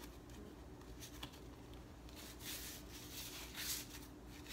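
A hand rubbing a Veet wax strip down onto the skin of an armpit: soft swishing strokes, several in a row starting about halfway through, over a faint steady hum.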